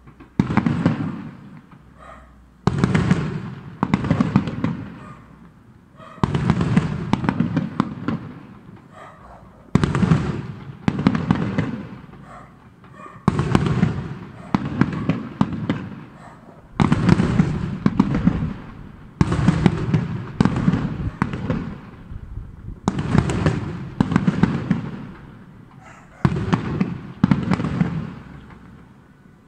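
New Year's aerial firework shells bursting one after another, a new bang every one to three seconds, each dying away over a second or so.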